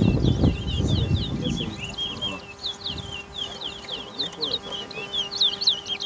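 Caged towa-towa seed finches singing in a song race: rapid, repeated high chirping notes that run on without pause. A low rustling rumble sits under the song for the first two seconds.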